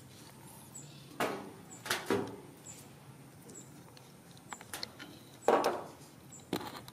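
Baby monkeys eating cake at a table: a handful of short knocks and handling noises from hands and plates on the tabletop, the loudest about five and a half seconds in.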